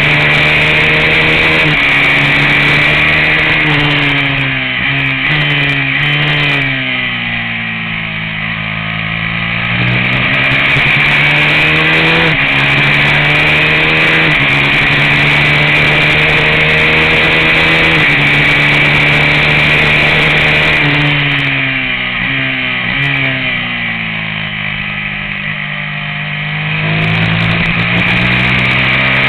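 Race motorcycle engine heard onboard at high revs, its pitch climbing and stepping back down at each upshift. Twice the revs fall away as the rider closes the throttle for a corner, then climb again under hard acceleration.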